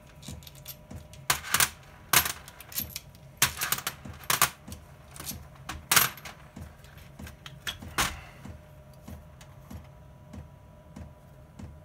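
Metal parts clinking and knocking as the intake camshaft is handled and lifted out of a first-generation Yamaha R1's cylinder head. Irregular sharp clinks, the loudest about six seconds in and another near eight seconds, with lighter taps between.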